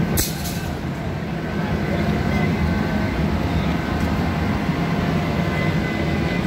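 Steady low rumble of city street noise, traffic and crowd, with a brief hiss just after the start.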